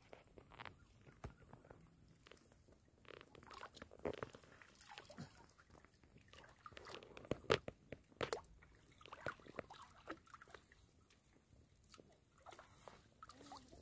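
Irregular small splashes and sloshing of muddy water close by, from someone wading chest-deep in a pond, with a few sharper splashes about four and seven to eight seconds in.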